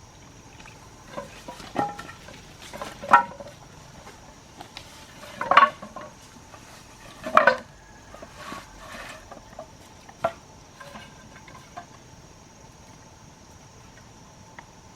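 Irregular knocks and clinks of hard objects striking one another, a handful of separate hits with short ringing, the loudest three between about three and seven and a half seconds in.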